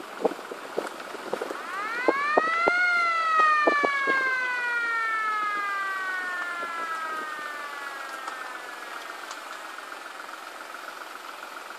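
Fire engine siren sounding one wail: it rises over about a second, then falls slowly over about six seconds and dies away. A few sharp knocks are heard in the first few seconds.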